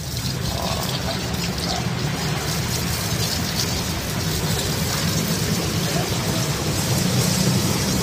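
Water splashing steadily over a monitor lizard and a snake as they are bathed, an even hiss with a steady low hum underneath.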